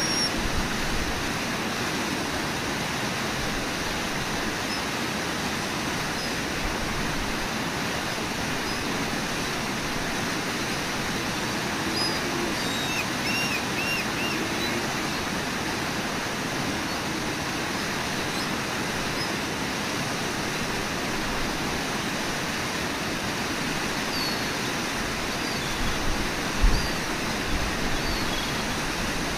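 Steady rushing of a waterfall and the whitewater rapids below it, with a few faint high chirps and a brief low thump near the end.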